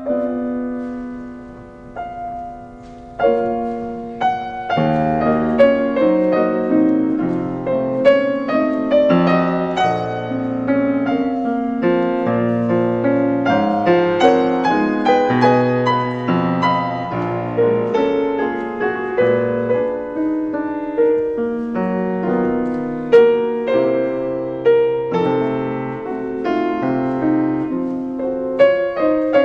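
Gentle piano music: a single held chord at first, then a flowing run of notes from about three seconds in.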